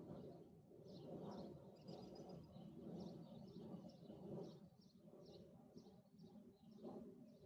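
Faint birdsong: short high chirps repeating every half second or so over a low, quiet outdoor rumble.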